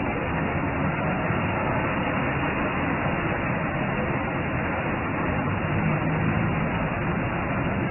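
Steady city street traffic noise, an even rushing wash with a faint low engine hum that rises briefly past the middle.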